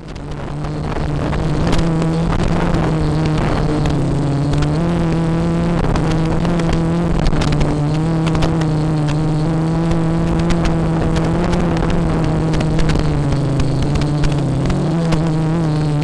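FPV quadcopter's electric motors and propellers spooling up from rest and then buzzing steadily in flight. The pitch steps up and down slightly as the throttle changes.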